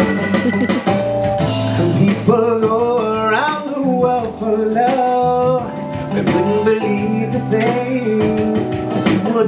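A man singing into a handheld microphone over backing music, his voice holding and sliding through long notes.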